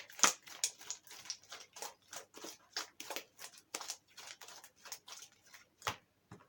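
Slime being kneaded and squeezed by hand, giving a quick irregular run of wet clicks and pops, several a second.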